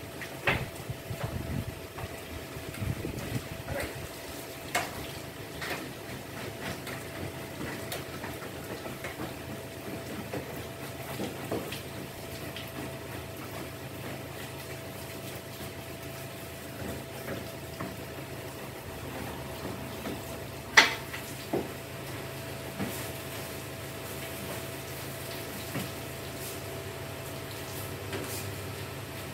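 Water running from a garden hose and splashing, with scattered small knocks and one loud sharp clack about two-thirds of the way through, over a faint steady hum.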